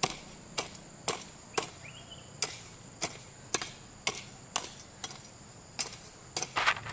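Repeated chopping or striking blows, about two a second, each a sharp knock.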